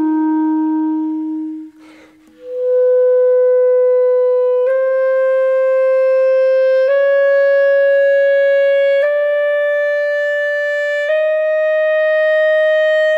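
German-system Wurlitzer B-flat clarinet with a Selmer Focus mouthpiece and Vandoren V12 reed, playing long tones. A held note ends with a short pause about two seconds in; then come five sustained notes of about two seconds each, climbing by semitones.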